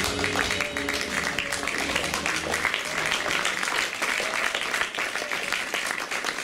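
Audience applauding with a dense patter of clapping and a few voices among it; the last low notes of the music stop about two and a half seconds in.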